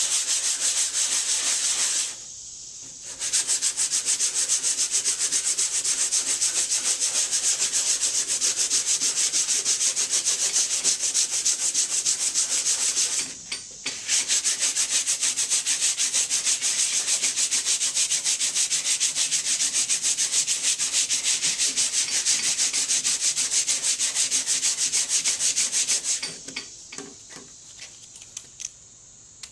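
Hand sanding with 80-grit sandpaper on a paint-stick sanding board, rasping back and forth in rapid strokes over fiberglass filler on a car door. It is loud enough to drown out speech. The sanding pauses briefly twice and stops a few seconds before the end.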